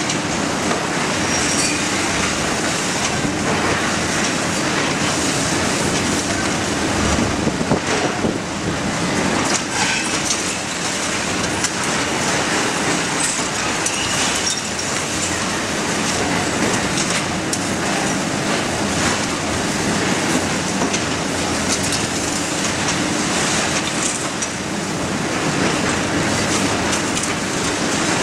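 Demolition excavator's crusher jaws working into a concrete building: continuous crunching and clattering of breaking concrete and falling rubble, with a steady drone underneath.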